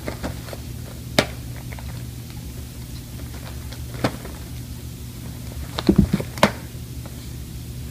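Kitten pawing and scrabbling at a cardboard box: sharp taps about a second in and again around four seconds, then a cluster of louder knocks and thumps about six seconds in as it climbs onto the box, over a steady low hum.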